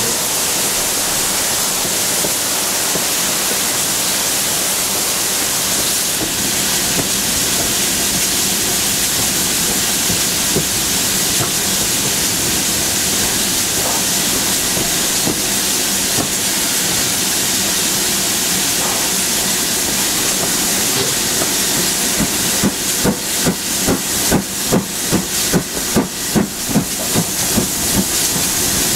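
BR Standard Class 7 steam locomotive letting off a steady loud hiss of escaping steam. About three-quarters of the way through, regular exhaust beats start at roughly two a second over the hiss as the engine works.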